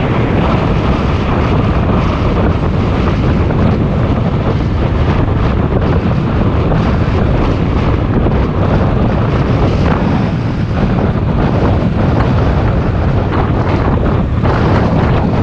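Heavy wind buffeting on the microphone of a motorcycle-mounted camera while riding, with the bike's engine running underneath.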